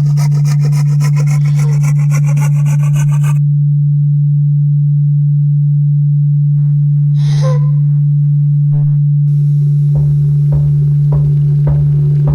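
A steady low pure tone held throughout under layered sound-art effects: a rising, sweeping buzz for the first three seconds, a brief hiss a little past halfway, then a rasping rub with regular ticks about twice a second near the end.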